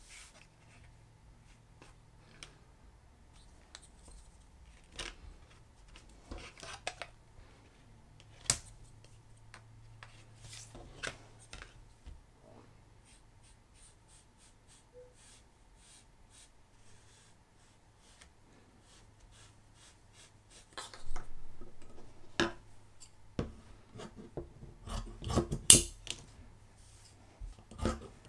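Scissors cutting through folded fleece fabric on a cutting mat, in short snips that come thick and loud in the last third. Before that, only faint rubbing and light taps as the fabric is smoothed and marked.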